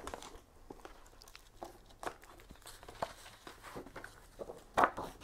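Paper and box packaging being handled: soft rustles and crinkles of a sheet of paper with scattered light clicks, the loudest rustle near the end.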